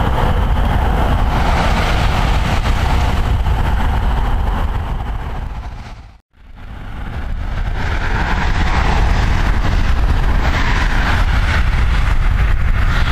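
Strong wind rushing over the microphone under a severe thunderstorm: a steady, noisy roar with heavy low rumble, which the chaser believes is a roar from the storm. About six seconds in it fades away to silence and swells back up a second later.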